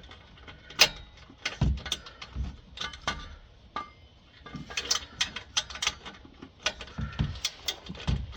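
Hand tools clicking and clinking against metal exhaust hardware while exhaust clamps are worked loose. Irregular sharp metallic clicks with a few dull knocks in between.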